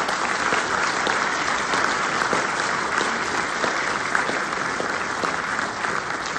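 Audience applauding steadily, many hands clapping at once, in welcome of a speaker being introduced.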